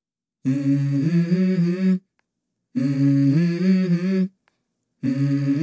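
Wordless humming opening a song: three hummed melodic phrases, each about a second and a half long, with short silences between them.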